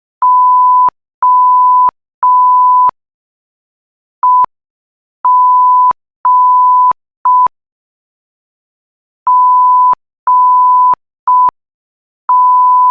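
Censor bleep tone keyed on and off as Morse code dahs and dits: one steady high pitch in long and short beeps. Three long beeps, a pause, then a short, two long and a short, a pause, then two long, a short and a long.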